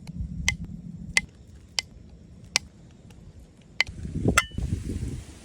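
A series of sharp, evenly spaced knocks, about one every two-thirds of a second. A louder rustling, rumbling handling noise comes about four seconds in.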